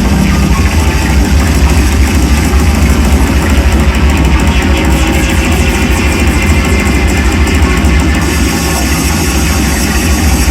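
Live psychedelic drone noise music: a loud, dense, unbroken wall of distorted sound with a heavy low end.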